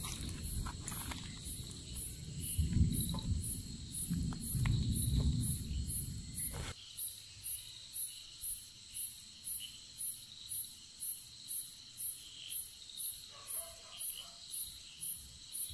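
A cricket chirping steadily, about two chirps a second, over a thin continuous high insect buzz. Low rumbling with scattered clicks fills the first several seconds and cuts off suddenly just before the midpoint.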